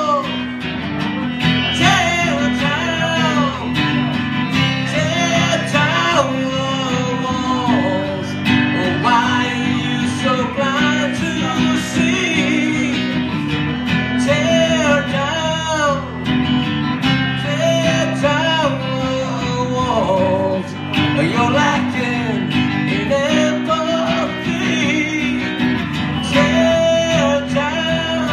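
Acoustic guitar strummed steadily, with a man singing a melody over it.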